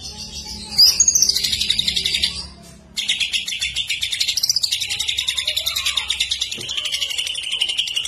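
Male greater green leafbird (cucak ijo) singing a rapid, high trill. It is loudest about a second in, breaks off briefly just before three seconds, then runs on as an unbroken fast trill.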